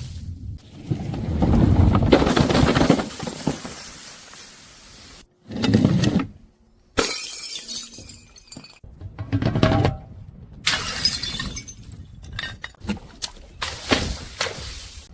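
Glass bottles being crushed, crunching and shattering in a run of short separate takes that start and stop abruptly. The longest stretch of crunching comes in the first few seconds, followed by shorter loud breaks and crackling.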